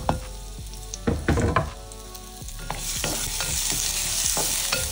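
Chopped onion frying in hot oil in a pot, stirred with a wooden spatula: a few knocks and a scraping clatter in the first two seconds, then the sizzle grows louder about three seconds in and holds.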